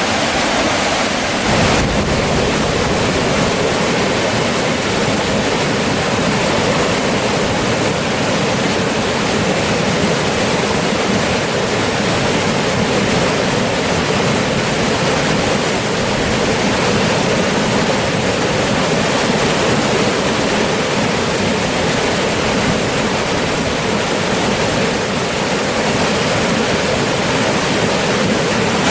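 Mountain stream rushing steadily over rocks, a loud, even water noise that grows fuller and deeper about a second and a half in.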